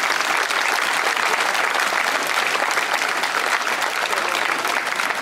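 Large crowd of spectators applauding, a dense steady clapping.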